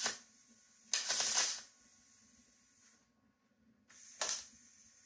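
Short tack welds on 16-gauge aluminium sheet with a MIG spool gun: brief hissing, crackling bursts of about half a second each. One ends right at the start, one comes about a second in, and one about four seconds in.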